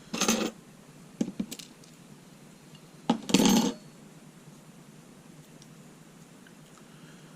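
Small metal padlock parts clinking and clattering as a C-clip is worked onto the lock cylinder: a short clatter at the start, a few light clicks about a second in, and a louder clatter a little after three seconds in.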